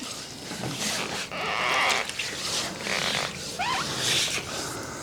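Water being poured from a container and sloshing onto a freshly sawn hickory board to wet it down and bring out the grain, in uneven gurgling splashes, with a short rising squeak about three and a half seconds in.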